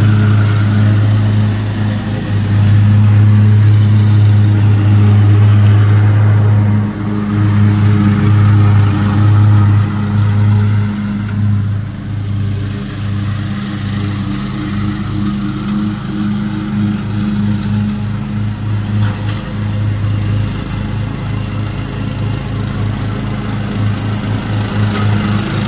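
Cub Cadet XT1 riding lawn tractor running steadily while it mows and bags fallen leaves through its dual bagger. The engine grows fainter through the middle as the tractor moves farther off, and louder again near the end as it comes back.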